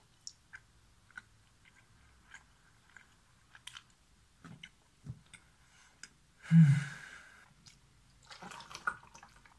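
A person eating toast with chocolate spread: quiet chewing with small wet mouth clicks and crunches. There is one louder mouth noise about six and a half seconds in.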